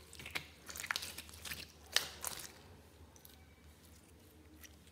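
Clear glue slime being squeezed and stretched by hand, giving a quick string of sharp clicks and pops for the first couple of seconds, then going quiet apart from one small pop near the end.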